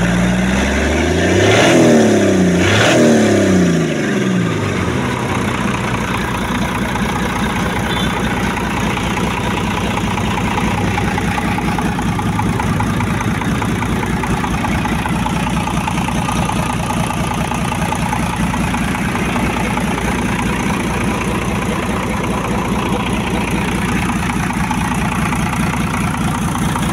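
Bare diesel engine running out of its vehicle: revved up and back down twice in the first four seconds, then idling steadily.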